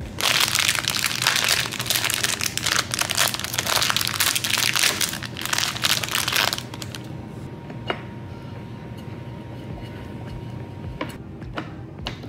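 Clear plastic bag of screws crinkling loudly as fingers work it open, for about six and a half seconds; then it goes quieter, with a couple of small clicks.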